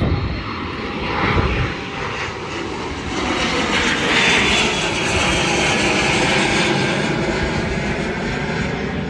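Private jet's engines passing by with a loud, steady rush and a high whine that is strongest about four seconds in.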